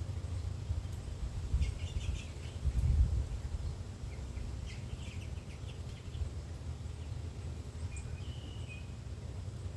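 Songbirds chirping in short bursts several times, with one brief held whistle near the end, over a steady low rumble that swells twice in the first few seconds.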